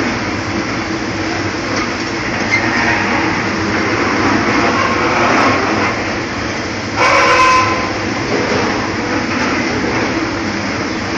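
Steady industrial machinery running while granular material pours in spurts from a chute into a woven bulk bag, with a low hum under the rushing hiss. About seven seconds in comes a brief, louder, high screech.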